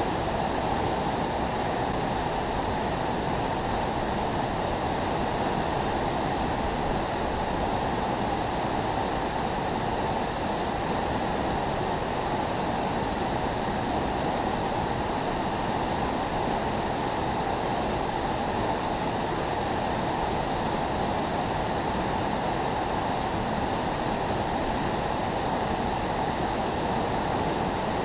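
Water rushing through a river spillway: a steady, even rush with no change.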